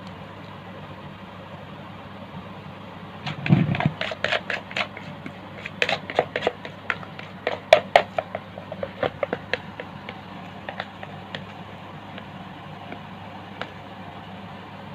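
Plastic bag and plastic mixing bowl being handled while dough is squeezed into a cup: a low thump about three seconds in, then several seconds of crackling clicks and knocks that thin out, over a steady low hum.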